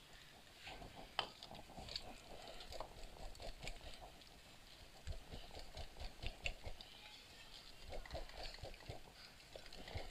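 Wire whisk beating a thick flour-and-egg pancake batter in a glass bowl: quick, irregular light clicks of the metal wires against the glass.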